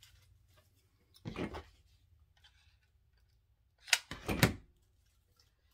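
Two short bursts of handling noise from craft work: things knocked and set down on a work table. The second, louder burst about four seconds in holds two sharp clicks.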